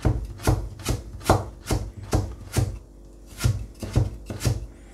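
Kasumi nakiri knife shredding carrot, its blade knocking on the cutting board in quick, even chops about two to three a second, with a short pause a little past the middle.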